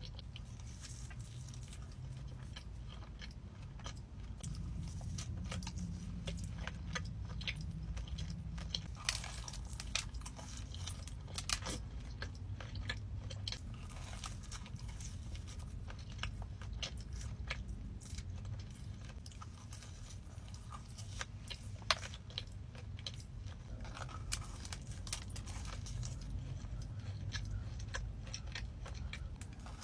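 Close-miked chewing and biting of donuts: soft, wet mouth sounds with many small sharp clicks, over a steady low hum.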